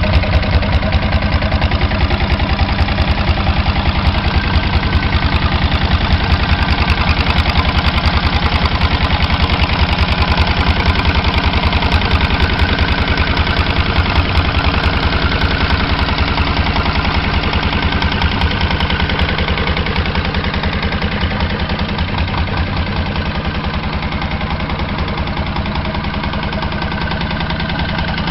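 Diesel motorcycle engine idling with a steady, rapid knocking clatter, easing slightly in loudness toward the end.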